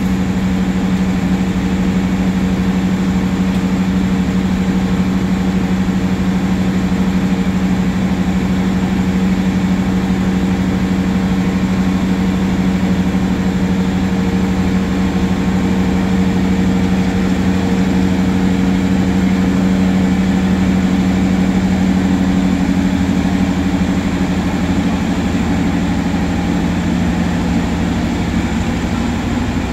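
Long-distance passenger train's diesel engine running steadily at the platform: a loud, even drone with a low hum and a higher tone that fades out about two-thirds of the way through.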